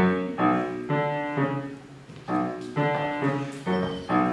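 Piano playing a song's introduction in repeated struck chords, about two a second, each ringing and fading before the next.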